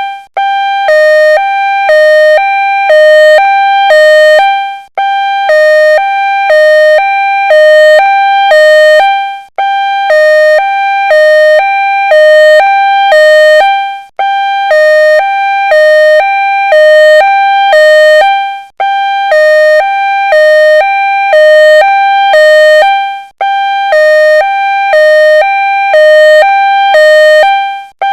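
Ambulance siren sounding a two-tone hi-lo wail: a higher and a lower note alternate steadily, each lasting about half a second. The pattern breaks off sharply and restarts about every four to five seconds.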